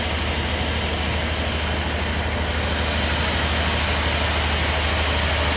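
Bandsaw sawmill running steadily, with a low hum under a constant hiss.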